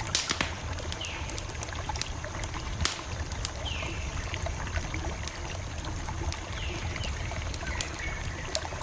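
Campfire crackling: frequent sharp, irregular pops and snaps over a low steady rumble of burning wood.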